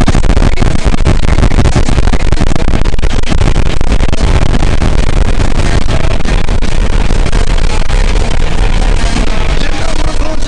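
Loud, dense distorted rock music with heavy guitars.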